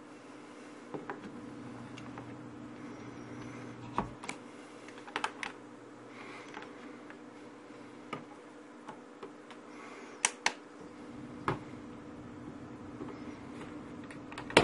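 Irregular sharp clicks and knocks, some in quick pairs, from a plug-in soldering iron being handled, plugged into the outlet and set with its tip on a tip thermometer, over a steady low hum. The loudest click comes near the end.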